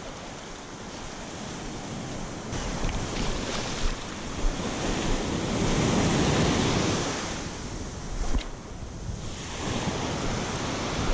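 Ocean surf breaking and washing up the sand around the feet, swelling to its loudest about six seconds in and easing off before the next wave, with wind buffeting the microphone.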